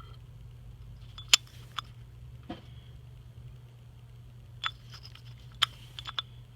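A few sharp clicks and light knocks, about seven scattered over several seconds, from tools and parts being handled during injector-cup removal, over a steady low hum.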